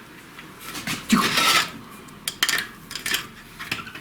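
Loose steel engine parts clinking and clattering as they are handled and set down, with a short scrape about a second in and several sharp clinks after it.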